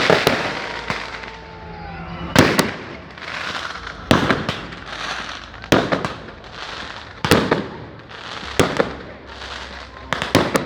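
Fireworks going off: about six sharp bangs at a steady pace, roughly one every second and a half, with a fainter hiss between them.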